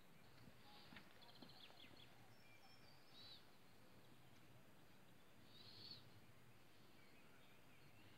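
Near silence, with faint bird chirps and short trills a few times: about a second in, near three seconds and near six seconds.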